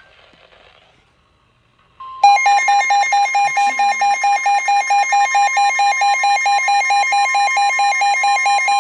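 Emergency alert on a weather radio: about two seconds in, a steady single-pitch warning alarm tone comes on, and a moment later a loud electronic alarm starts beeping several times a second over it. It announces a new warning, here a flash flood warning.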